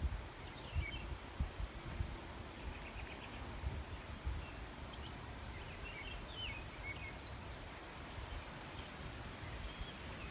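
Outdoor ambience: wind buffeting the microphone in low gusts, strongest in the first few seconds, with small birds chirping in short high notes throughout.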